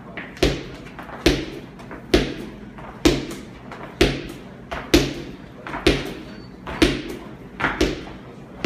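Heavy thuds in a steady rhythm, a little under one a second, about ten in all, from a gym workout: something being slammed or landing hard on the floor again and again, with a short ring of the room after each.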